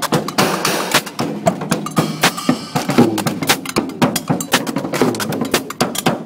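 Drums being played: rapid, busy percussion strikes with a low drum body beneath the sharp hits.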